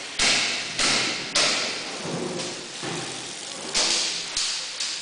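Running tap water splashing onto gloved hands and headed and gutted silver smelt as they are rinsed in a steel trough. It comes as about eight sudden hissing gushes, each with a small knock at the start and dying away within half a second.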